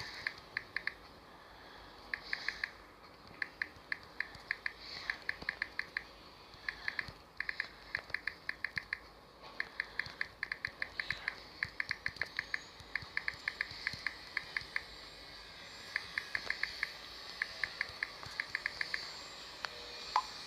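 Key clicks from a smartphone's touchscreen keyboard in quick runs of several taps, with short pauses between runs, over a faint hiss.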